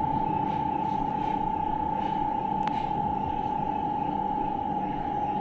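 A steady high-pitched hum runs throughout. Over it come faint, short, high chirps and ticks from a budgerigar, with one sharp click near the middle.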